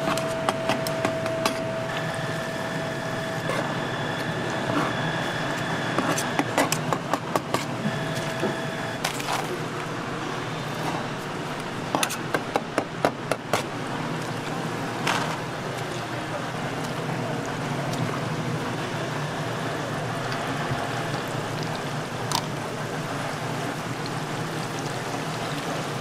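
Hot oil sizzling steadily in a deep fryer as fish paste is slid into it off a long metal knife. Quick runs of sharp clicks from the knife against the board and fryer come twice, and a faint steady whine sounds over the first third.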